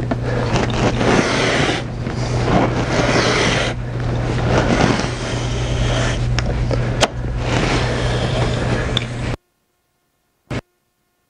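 Straight-edge rail cutter's cutting head scraping along its rail as the blade slices through poster-mounted foam core, in long strokes with brief pauses. The sound cuts off suddenly about nine and a half seconds in.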